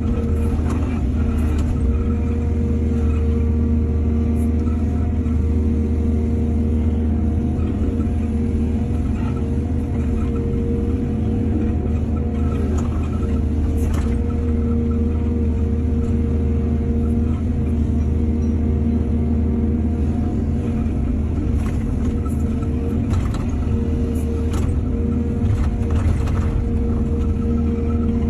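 Heavy diesel engine of an excavator running steadily under load, with scattered clanks and knocks from the machine's bucket work.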